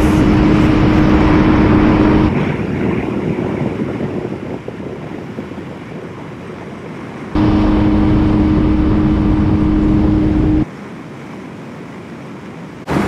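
Honda CBF600's inline four-cylinder engine running at a steady cruising note under heavy wind rush while riding at speed. The sound drops abruptly to a quieter, duller version about two seconds in and again near the end, coming back loud for a few seconds in between.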